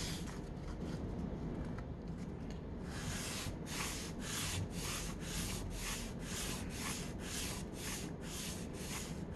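Sandpaper on a thin block rubbed back and forth along a routed groove in an acrylic panel, smoothing the groove so a panel will slide in it. The strokes are light for the first few seconds, then come steadily about three a second.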